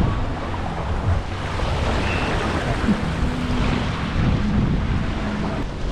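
Steady wind buffeting the microphone, with water rushing past the hulls of a Hobie Getaway beach catamaran under sail.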